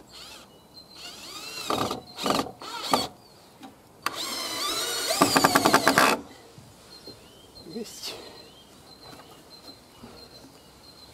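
Cordless drill-driver driving screws into the timber frame: three short trigger bursts, then, about four seconds in, a louder run of about two seconds whose pitch rises before it stops.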